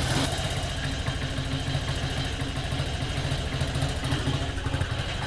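Carbureted 125 cc commuter motorcycle engine idling steadily on choke with a slightly uneven beat. It has just been revived after sitting about a week, and the owner suspects the fuel still needs coaxing through the system.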